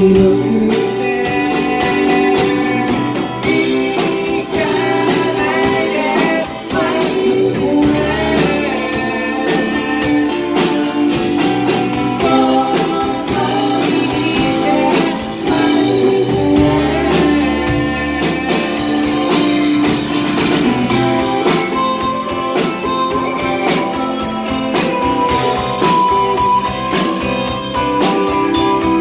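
Live band music: a man singing while strumming an acoustic guitar, with bass and drums playing along.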